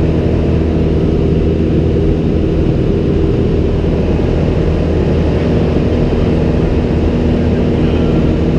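Single-engine light aircraft's piston engine and propeller running steadily in flight, heard from inside the cabin as an even drone with a fixed pitch.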